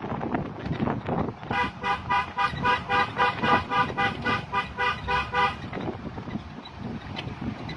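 Vehicle horn sounding a rapid string of short toots, roughly four a second for about four seconds, over road and wind noise.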